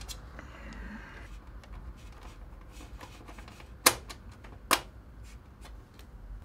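Motherboard mounting pins being fitted into a PC case's motherboard tray: scattered small clicks and light taps, with two sharper knocks about four seconds in and a little under a second later.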